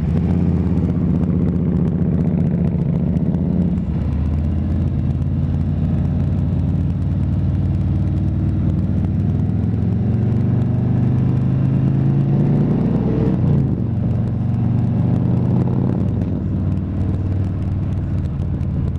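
Harley-Davidson touring motorcycle's V-twin engine under way, heard from the bike itself. The engine note climbs for a few seconds and drops with a gear change about four seconds in, then climbs slowly again and eases off about thirteen seconds in before running steadier.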